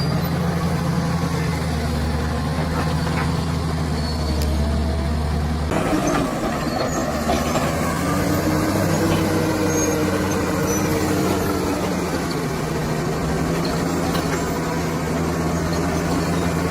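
Bulldozer's heavy diesel engine running steadily, its low note changing abruptly about six seconds in. A whine rises and falls over the next few seconds.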